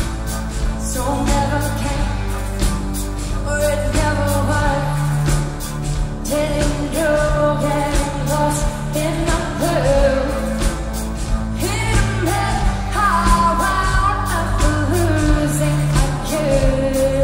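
Live pop band: a woman singing lead into a microphone over sustained bass notes and a steady drum beat, heard through a concert PA.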